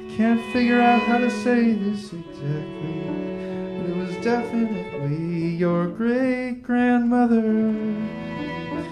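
Live chamber music: a male voice singing long, held notes over sustained bowed strings and harmonium.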